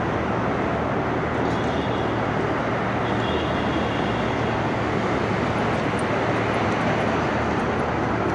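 Steady city street noise, a continuous rumble of traffic and trains with a low hum underneath.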